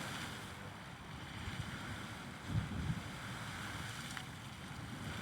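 Wind buffeting the microphone over a steady rushing noise, with stronger gusts about two and a half seconds in.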